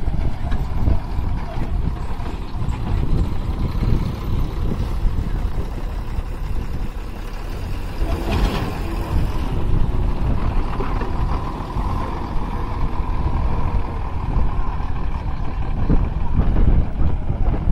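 Diesel engine of a 12-wheel Ashok Leyland truck running with a steady low rumble as the truck moves slowly over dirt, with a short hiss about halfway through.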